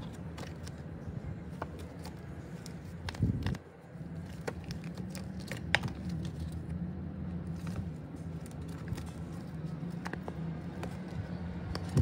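Plastic photocard sleeves and the clear pages of a collect book being handled: scattered small clicks and crinkles over a steady low hum, with a dull thump about three seconds in.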